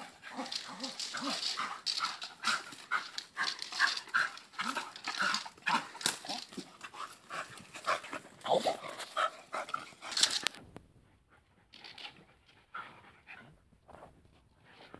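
Dogs yapping in quick, high-pitched yelps, several a second, for about ten seconds. After that only a few scattered, quieter sounds remain.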